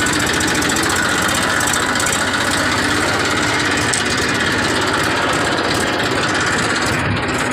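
Massey Ferguson 1035 DI tractor's three-cylinder diesel engine running steadily at an even speed, heard close up from the driver's seat.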